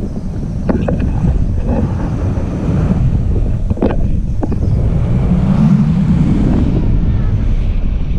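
Wind buffeting the microphone: a loud, low, unsteady rumble, with a few sharp clicks.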